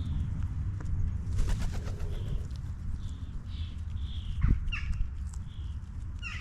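Garden birds calling: a short high chirp repeated roughly once a second, with quicker, sharper falling calls joining near the end, over a steady low rumble.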